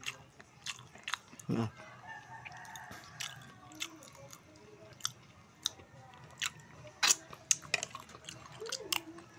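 Close-up chewing and eating sounds, with scattered sharp clicks and smacks, as a man eats cooked pufferfish and rice with his fingers. A rooster crows in the background about two seconds in.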